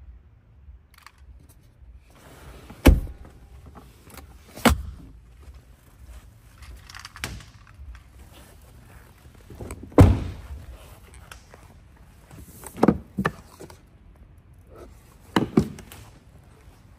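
A series of sharp thunks and clicks from a Lamborghini Urus SUV's doors and latches being handled, seven or so spread out with pauses between, the loudest about three seconds in and about ten seconds in.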